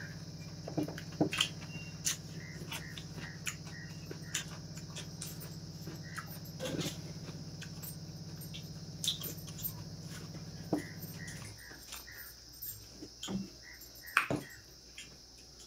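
Eating with the fingers from a stainless steel plate: scattered wet chewing and lip-smacking sounds and light clicks of fingers working rice against the metal plate. A steady high-pitched drone runs underneath, and a low hum stops about eleven seconds in.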